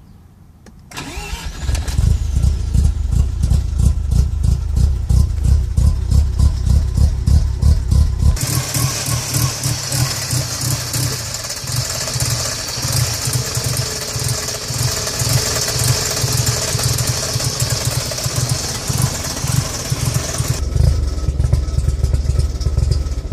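Car engine starting up and then idling roughly, its low, pulsing beat uneven: the rough idle the owner is asking about. A steady hiss comes in about a third of the way through and stops near the end.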